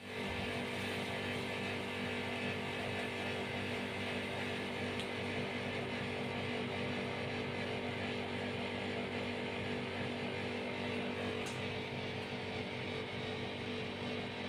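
A steady mechanical hum at a fixed pitch, like a small motor running, with no change in level throughout.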